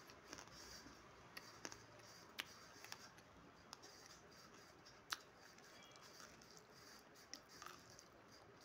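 Clay being chewed: faint, scattered crisp crunches, about eight in all, the sharpest about five seconds in.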